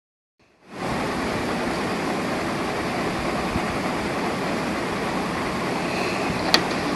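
Steady loud hiss of noise from a low-quality phone recording, with one short sharp click near the end.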